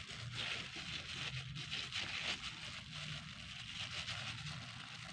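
Soft crinkling and squishing as a plastic-gloved hand and a spoon scoop and shape mashed potato dough.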